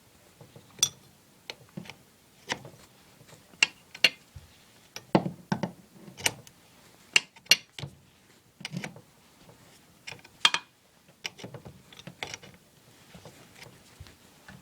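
Hand tools working on a household pipe fitting: irregular metal clicks and knocks, roughly one every second, some coming in quick pairs, as the fitting is worked loose.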